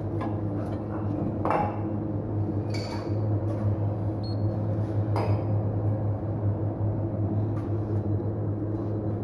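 Steady low electric machine hum, with a few short metallic clinks and knocks about one and a half, three and five seconds in.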